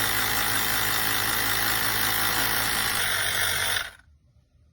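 CYCPLUS portable battery-powered mini air compressor running steadily as it pumps up a tyre, a loud whirring buzz that stops near the end.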